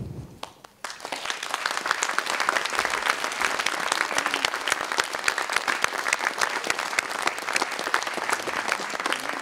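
Audience applause, starting about a second in and going on steadily as a dense patter of many hands clapping.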